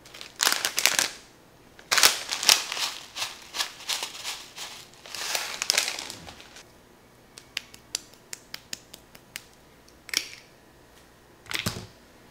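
Crisp tenkasu (tempura bits) shaken onto a bowl of udon in three rustling bursts, then a quick string of light clicks as shichimi pepper is shaken on, and a knock near the end.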